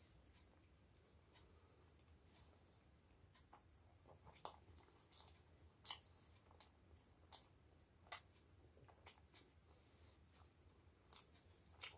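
Faint mouth sounds of a person eating by hand and chewing: scattered sharp lip smacks and clicks, a few seconds apart. Behind them runs a steady, fast, high-pitched chirping.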